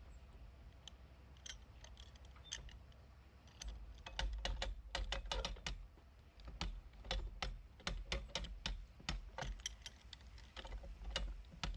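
Metal ratchet clicking as a lock paddle is wound with a windlass: scattered clicks at first, then a quick, irregular run of clicks from about four seconds in.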